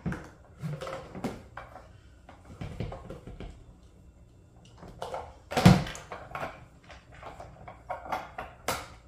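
Scattered clicks and knocks of hard plastic parts being handled while a wheel nut is tightened on a toy ride-on ATV. The loudest sound is a single thump about five and a half seconds in, as the tilted plastic quad is set back down on the wooden floor.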